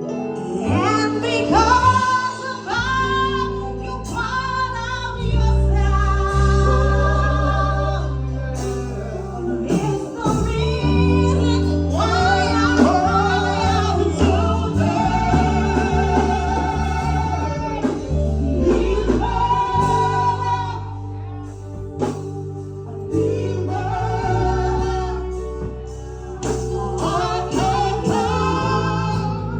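Gospel worship song: a woman singing with sustained keyboard chords and a bass line beneath.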